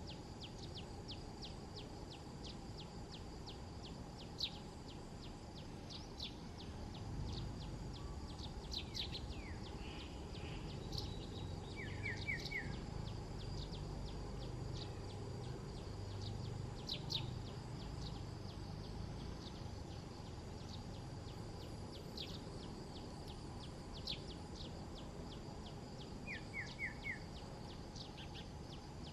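Outdoor ambience of small birds chirping in the trees: many short, high chirps scattered throughout, and a quick run of three or four notes twice. A low rumble sits underneath through the middle.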